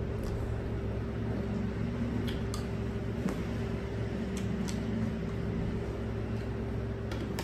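A steady low machine hum with a faint steady tone above it runs throughout. Over it come a handful of faint, sharp clicks from a metal spoon scooping ice cream out of a plastic tub.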